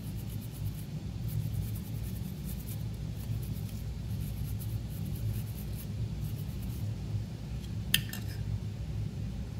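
A stiff-bristled brush scrubbing a circuit board wet with 99% isopropyl alcohol to wash off flux residue, heard as faint quick scratchy strokes over a steady low hum. There is one sharp click about eight seconds in.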